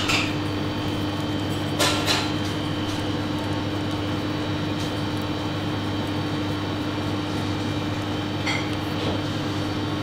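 Steady drone of commercial kitchen ventilation, an even hum with a constant tone, broken by a few brief light taps, the clearest about two seconds in.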